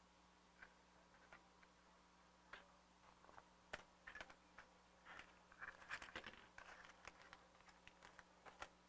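Faint clicks and light rattles of small RC differential parts, bearings and gear-case pieces, being handled and fitted by hand. The clicks are sparse at first and come thicker from about four seconds in.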